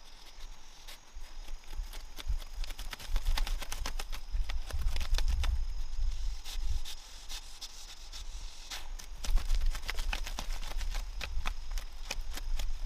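Irregular rapid clicking, tapping and rustling of hand work, thickest from about three to six seconds in and again near the end, over a steady high drone of insects.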